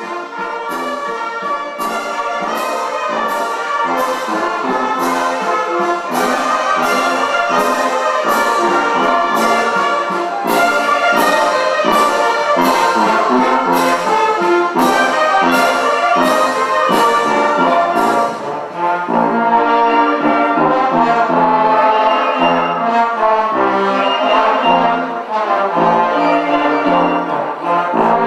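Brass band music: horns play a melody over a sharp struck beat about twice a second. The beat stops about two-thirds of the way through and the horns carry on.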